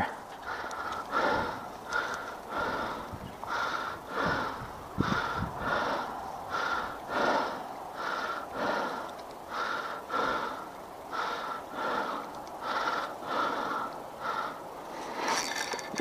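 Fishing reel being cranked to retrieve line, a regular whirring pulse about twice a second.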